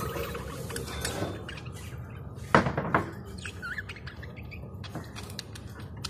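A pet parrot chirping and calling in short notes, with one louder burst about two and a half seconds in that lasts about half a second.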